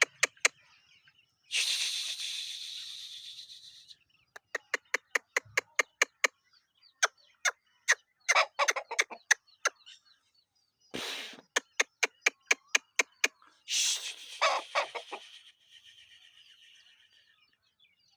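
Aseel chicken clucking in quick runs of short, sharp notes, about four or five a second, with two longer bursts of hissy rustling noise.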